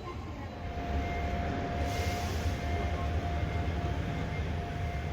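Train approaching: a low rumble that builds from about a second in, with a steady whine held over it.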